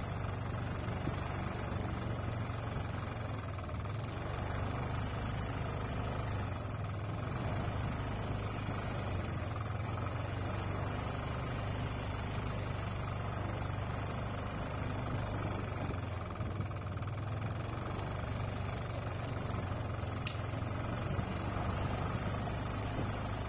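A vehicle's engine running steadily with a low, even hum while moving slowly, with one faint click about twenty seconds in.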